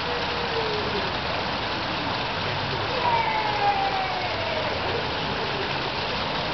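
Steady outdoor background hiss, even throughout. Over it are two long, slowly falling tones, one in the first second and a higher one from about three seconds in, lasting a second or two.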